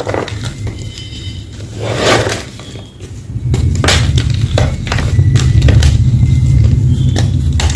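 Homemade gym chalk block being crushed and crumbled, with crisp cracks and crunches. From about three and a half seconds in, a heavy low rumble of the chalk being pressed and ground is the loudest part.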